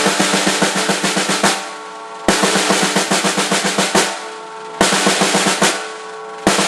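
Snare drum played in a fast single stroke roll, alternating hands. It comes in rapid bursts of one to two seconds with short pauses between, where the drum rings out, most bursts ending on a harder stroke.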